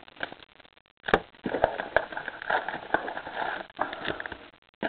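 Sealed trading-card packs being handled: their crimped foil wrappers crinkle and rustle irregularly, with small clicks, starting about a second in.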